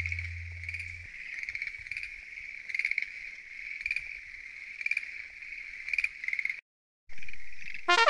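Chorus of tree frogs calling at a pond at night: a dense, steady overlapping trill with louder pulsed calls rising out of it every second or so. A low hum fades out in the first second, and the sound cuts out briefly about two-thirds of the way through.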